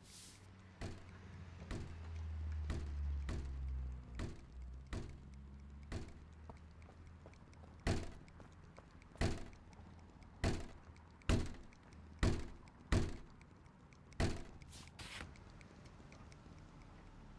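Cartoon sound effects of a fly swatter swatting: a run of sharp slaps roughly once a second, the hardest ones in the middle stretch, over a low steady hum.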